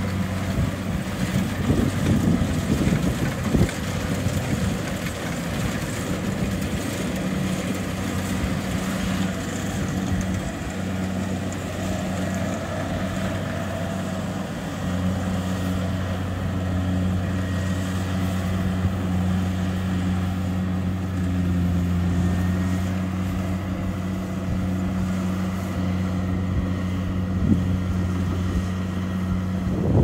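Kubota DC70 Plus rice combine harvester running under load while cutting and threshing, its 70 hp diesel engine giving a steady low drone that grows a little stronger and more even about halfway through.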